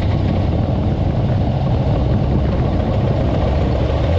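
Lifted 1989 Jeep Cherokee XJ driving on pavement, heard from under the front end: the steady low drone of its 4.6-litre inline-six engine mixed with the hum of its 35-inch mud-terrain tyres on the road.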